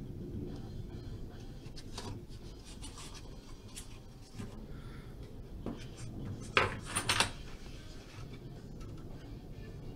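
Hard plastic cabinet parts of a small portable TV being handled: scattered clicks, knocks and rubbing, loudest in a short burst of clatter about seven seconds in, over a steady low hum.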